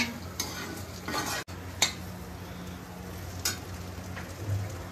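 Chowmein noodles stir-fried in a pan: steady sizzling with three sharp clicks of a utensil against the pan.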